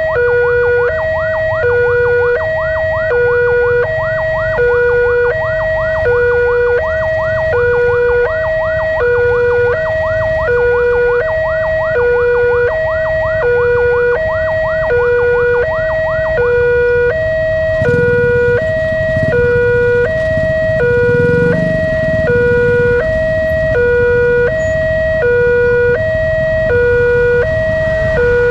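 Railway level-crossing warning alarm sounding: an electronic two-tone ding-dong alternating steadily, each tone about half a second long. Over it, a faster rising chirp repeats several times a second and stops a little over halfway through. A low rumble then swells in beneath the alarm.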